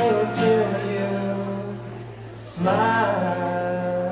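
Acoustic guitar strumming the closing chords of a song: a chord struck at the start and another a little after halfway, each left to ring.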